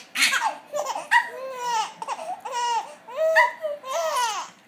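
Baby laughing in a run of short, high-pitched laughs, each rising and falling in pitch.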